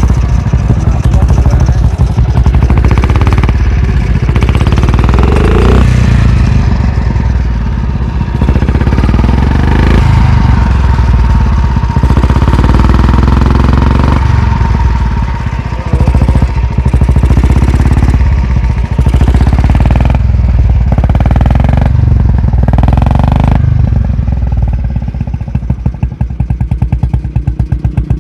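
Motorcycle powered by an old diesel engine converted to run on petrol, running loudly with its engine speed and load changing. Near the end it settles into a slower, evenly pulsing firing beat. The owner says this engine still often suffers detonation, perhaps from wrong ignition timing or fuel.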